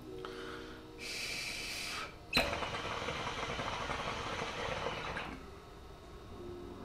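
Hookah water base bubbling steadily as a long draw is pulled through the hose, one of the first draws on a freshly heated bowl. A short hiss comes about a second in, then a sharp click, then about three seconds of bubbling that stops a second or so before the end.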